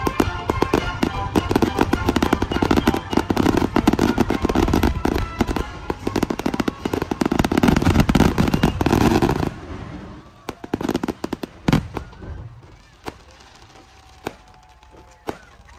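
Aerial fireworks in a dense barrage: a rapid, continuous rattle of bangs and crackling that stops abruptly about nine and a half seconds in. After that come a handful of isolated bangs and crackles.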